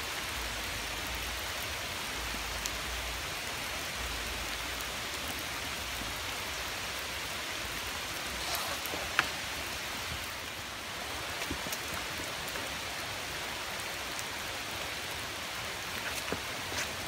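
Steady rain falling on the trees and a wet tee pad, with one sharp knock about nine seconds in.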